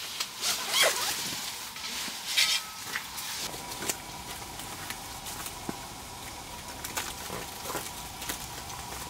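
Camping gear being handled: a run of irregular short rustling scrapes with a few light knocks.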